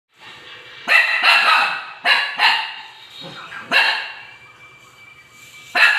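Dog barking at a stranger, about six loud barks, mostly in quick pairs, with a longer gap before the last one near the end.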